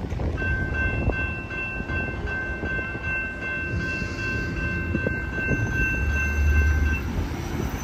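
Air horn of a Wheeling and Lake Erie diesel freight locomotive sounding one long, steady chord for about six and a half seconds, over the low rumble of the train.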